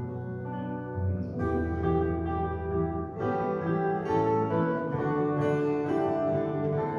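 Instrumental music led by an acoustic guitar, strummed chords changing every second or two.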